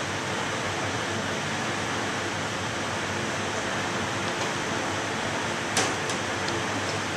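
Steady hiss of ventilation or air handling, with a single sharp click a little before the end.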